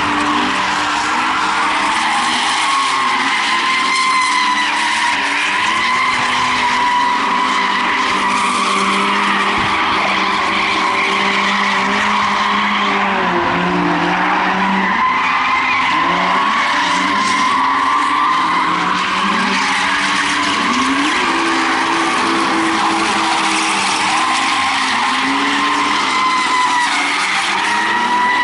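BMW E36 drift cars sliding sideways on tarmac, their tyres squealing in long, wavering high notes over engines revving up and down as the drivers hold the slides.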